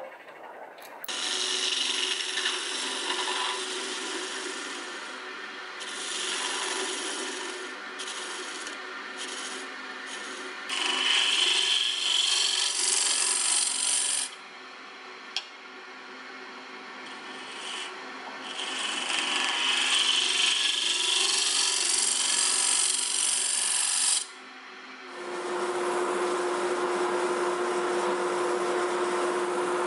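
Wood lathe spinning a small wooden top while a turning gouge cuts it, the shavings hissing off in several passes with short breaks between. Near the end, sandpaper rubs against the spinning wood over a steady hum from the lathe.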